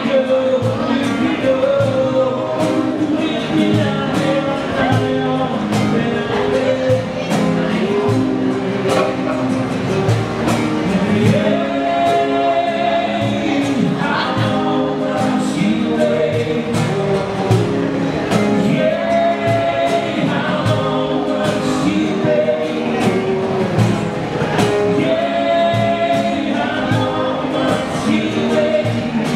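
Live band music with singing over a steady drum beat.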